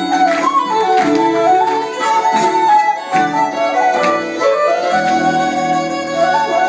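Live Irish traditional music: a band playing an ornamented tune, with uilleann pipes among the melody instruments over a plucked accompaniment, and steady low tones coming in about five seconds in.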